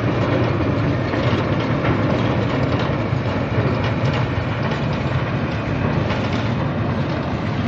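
A motor engine running steadily, a low, even rumble with no change in pitch.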